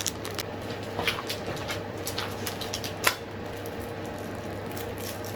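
A few light clicks and taps with soft rustling from items being handled, the sharpest about a second in and again about three seconds in, over a steady low hum.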